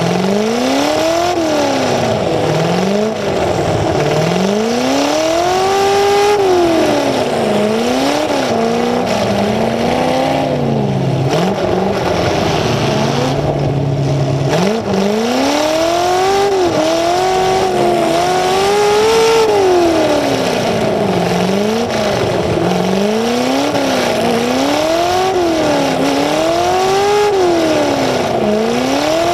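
Demolition derby car's engine revving hard and backing off again and again through open exhaust stacks that stick up through the hood. About halfway through it drops to a steady idle for a few seconds before revving again.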